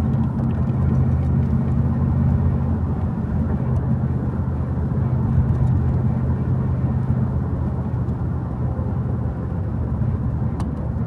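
Steady car noise: a low engine hum under road rumble.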